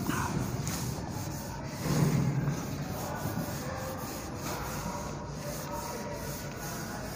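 Whiteboard eraser rubbing across a whiteboard, wiping off marker writing, with a short louder low sound about two seconds in.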